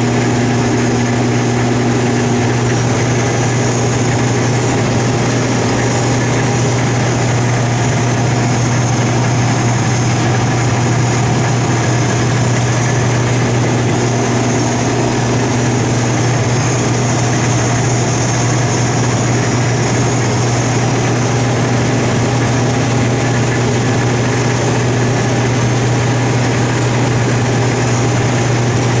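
Combine harvester running steadily, a constant low engine drone with a high whine above it and no change in speed.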